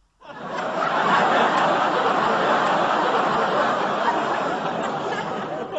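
Canned audience laughter, many people laughing together. It starts suddenly and begins to fade near the end.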